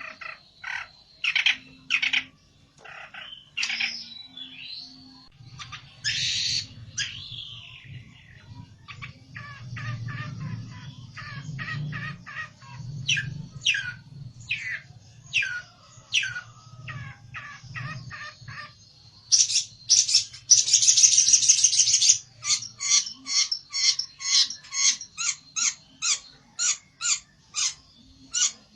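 A pelentet songbird calling over and over in short, sharp notes. There is a harsh scolding chatter a little past the middle, then a quick run of evenly repeated notes, the agitated calling of a bird challenging a rival.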